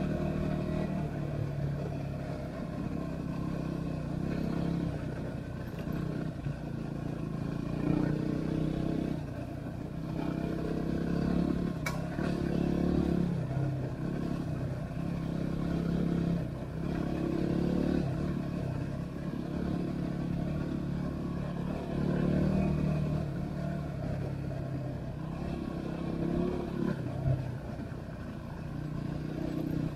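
Yamaha WR250R's single-cylinder four-stroke engine running while riding, its note rising and falling back every couple of seconds as the throttle is opened and closed.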